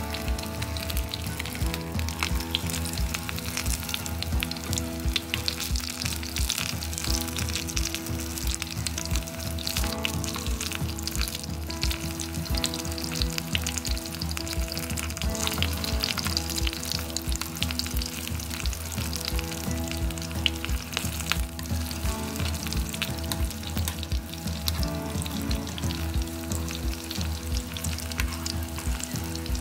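Battered cauliflower florets frying in hot oil in a pan: a steady sizzle with dense, fine crackling throughout.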